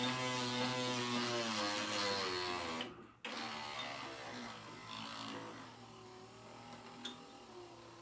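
Car window-lifter motor driving a mini mill's table lead screw through its clutch, running with a steady whine and gear hum. About three seconds in it cuts out briefly, then runs on more quietly and fades, with a couple of small clicks near the end.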